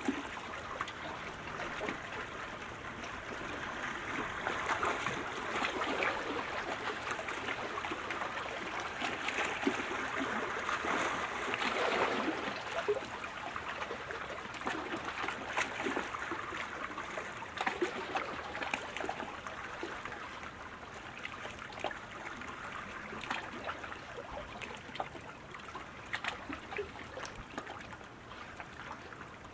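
Water splashing and trickling from the paddle strokes of a K1 sprint kayak, a steady wash of small splashes that grows quieter over the last several seconds.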